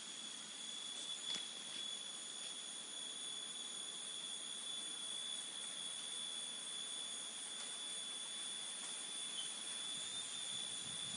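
Crickets trilling steadily in a forest: one unbroken high-pitched note over a soft hiss, with a faint tick or two about a second in.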